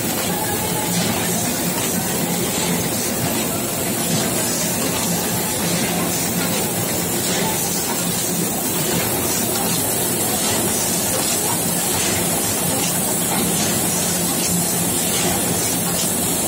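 Ice-cream bar wrapping machine and conveyor running: a loud, steady mechanical din with a strong hiss, a low hum and faint scattered clicks.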